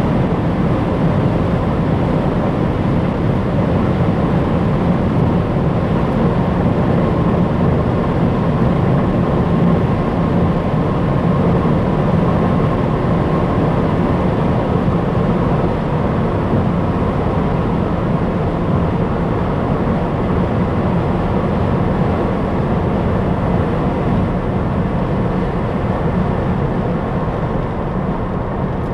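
Opel Insignia GSi at a steady high speed, its engine hum blended with road and wind noise, holding an even level without revving up or down.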